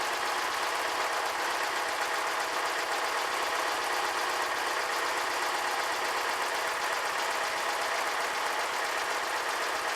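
Karmann Ghia's air-cooled VW flat-four engine idling steadily.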